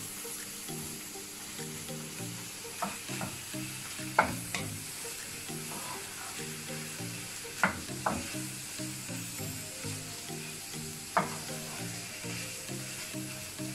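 Prawns, onion and green chillies sizzling in a frying pan as they are stirred with a wooden spatula, which knocks sharply against the pan about seven times.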